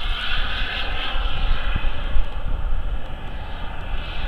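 Turbine of a Boomerang Sprint radio-controlled model jet in flight overhead: a steady rushing whine that drifts up and down in pitch as the jet moves across the sky, over a low rumble.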